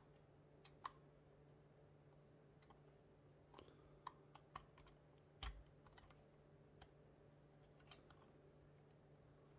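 Plastic building-block pieces faintly clicking and snapping as they are handled and pressed together by hand: about ten scattered small clicks, with one heavier knock about five and a half seconds in.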